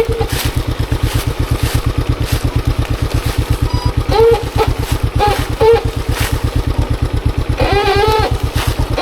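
Monarch Axis 125 trail motorcycle's single-cylinder engine running at low revs, with a steady chugging pulse of about eight beats a second.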